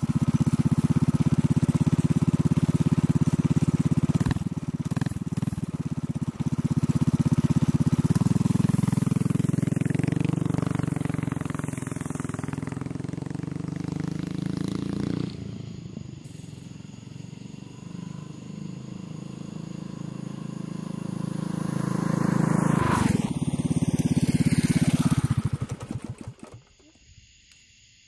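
Predator 212cc single-cylinder four-stroke engine of a Doodlebug mini bike running, its pitch and level rising and falling, fading lower in the middle and coming back up before cutting off about 26 seconds in.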